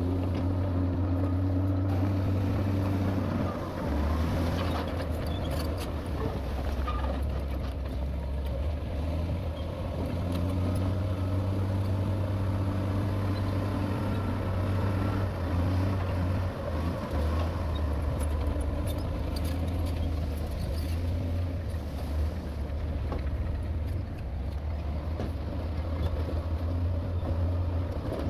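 Heavy diesel engine of earthmoving machinery running under load, a steady low drone whose pitch shifts a few times as the throttle changes.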